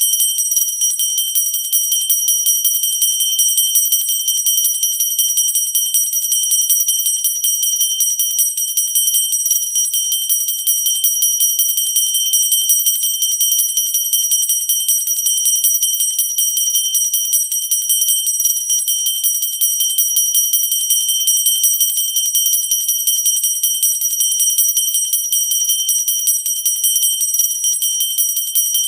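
Pooja bell rung continuously, its clapper striking many times a second, with a steady high ringing tone.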